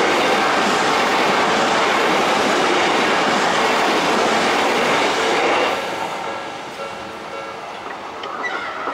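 Odakyu 70000-series GSE Romancecar electric train passing through at speed without stopping: loud wheel and rail noise for about six seconds, then fading as the train moves away.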